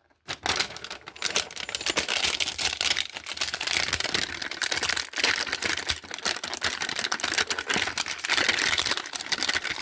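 Plastic shrink-wrap on a toy box crinkling and crackling as it is picked at and peeled off by hand, a dense run of fine crackles and clicks.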